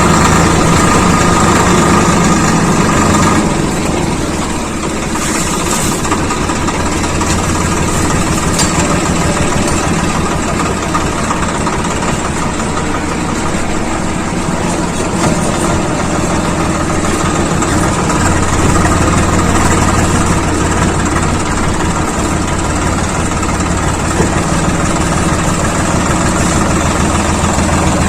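Swaraj 855 FE tractor's diesel engine running steadily, dipping slightly in level about three and a half seconds in.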